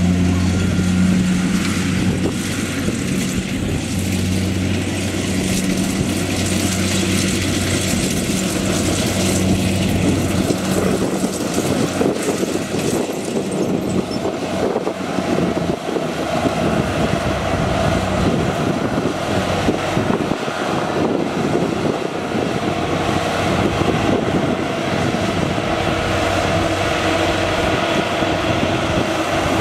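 Kubota crawler rice combine harvester running as it harvests, a steady engine drone mixed with the noise of its cutting and threshing gear. About ten seconds in, the steady hum gives way to a denser, noisier mechanical sound.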